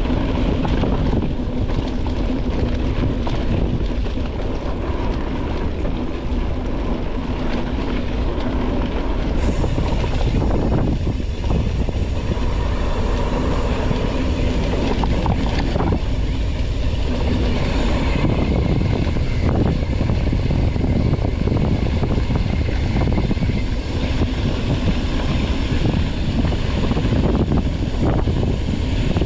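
Mountain bike descending a rough dirt trail: tyres rolling over the ground and the bike rattling continuously over rocks and bumps.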